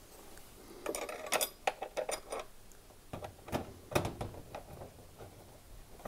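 Irregular light metallic clicks and clinks from a washing machine door hinge and its screws being handled and fitted with a screwdriver, starting about a second in and dying away near the end.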